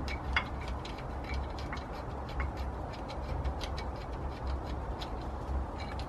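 Light, irregular metallic ticks and clicks, two or three a second, over a low steady rumble, from the engine being handled as it hangs on the hoist chain.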